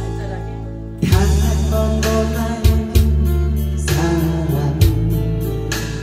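Live performance of a Korean trot song: a woman sings into a microphone, accompanied by acoustic guitar over backing music with a steady beat and bass. Her singing comes in about a second in, after a short instrumental lull.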